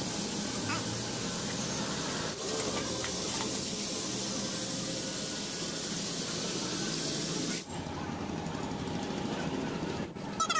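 Red-hot steel kukri blade quenched in a bucket of water, giving a steady hiss with a brief break about two seconds in. The hiss cuts off suddenly about three-quarters of the way through.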